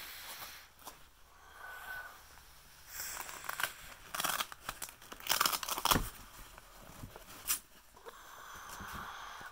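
Handling noise from black padded fabric reel cases being rummaged and moved about in a cardboard box: irregular rustling, scraping and crinkling, with a soft thump about six seconds in.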